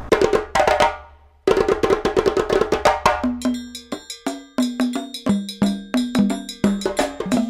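Background music: a rhythmic percussion track of sharp, wood-block-like strikes, with a bouncing bass line coming in about three seconds in.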